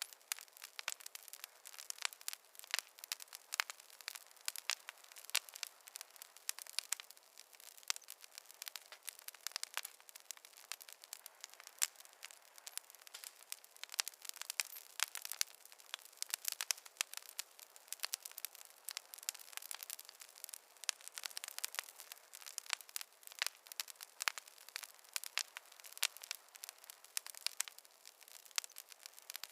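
Fireplace fire crackling: a steady stream of small, sharp pops and snaps.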